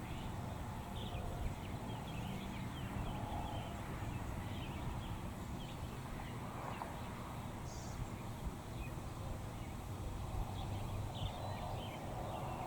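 Outdoor ambience: a steady low rumble with scattered faint bird calls.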